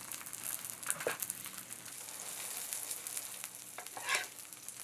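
Korean vegetable pancakes sizzling steadily as they fry in oil in a nonstick pan, with a spatula scraping against the pan about a second in and again, louder, near the end.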